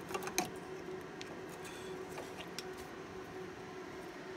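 A few light clicks and taps of cables and plastic connectors being handled inside an open server chassis, the sharpest just at the start, then fainter ticks, over a steady low hum.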